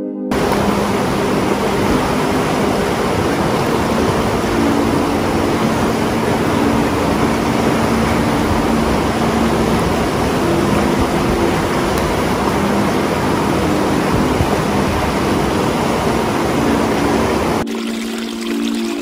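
Fast river rapids rushing loudly, a steady wash of water noise with soft ambient music tones faintly beneath. The rushing starts suddenly and cuts off abruptly near the end, leaving the music.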